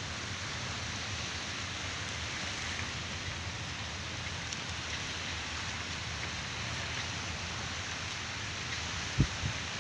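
Steady, even hiss of outdoor background noise, with one brief low thump near the end.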